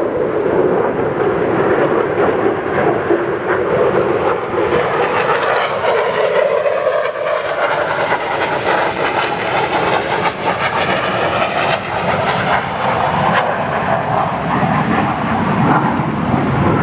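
Aircraft flying high overhead, a loud, steady engine noise that swells and shifts in pitch as it passes.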